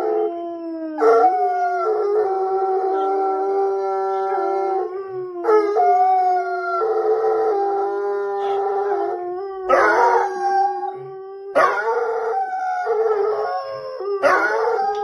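Two dogs, a German shorthaired pointer and a smaller dark dog, howling together in long overlapping howls: one steady, lower howl under a higher one that rises and falls, breaking off and starting again every few seconds.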